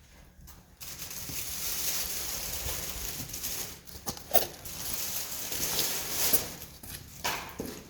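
Wood campfire burning: a steady hiss from about a second in, with occasional sharp crackles and pops, three of them standing out.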